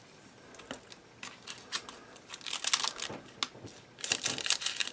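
Dull scissors snipping through the foil wrappers of trading card packs, with the wrappers crinkling as they are handled. The sound comes in short irregular bursts of crackle and snip, busiest about halfway through and again near the end.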